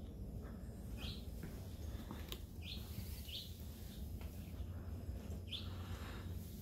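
A bird chirping: four short, high calls, each falling in pitch, spaced a second or two apart, over a low steady hum.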